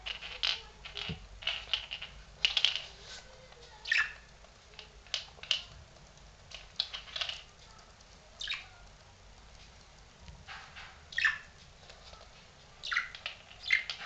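Budgerigar giving short, scattered chirps and squawks, about a dozen at irregular intervals.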